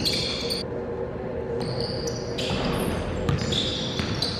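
Basketball game on a hardwood gym floor: sneakers squeaking in several short, high squeals and a basketball bouncing, with the echo of a large gym.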